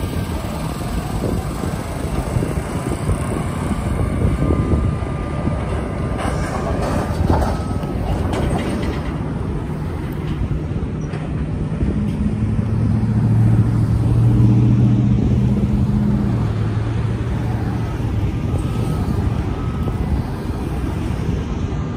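Road traffic driving past at a railroad crossing: cars, trucks and an SUV towing a trailer, with one vehicle's engine running loudest as it passes close, from about twelve to sixteen seconds in. A freight train rumbles in the background as it moves away.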